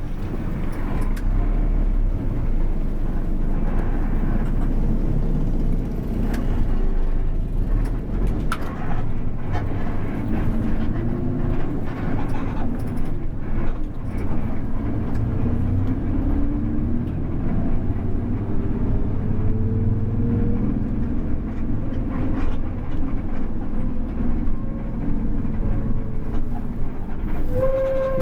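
Intercity bus running on the road, heard from inside the cabin: a steady low engine and road rumble, with the engine note rising and dropping back several times as it pulls through the gears.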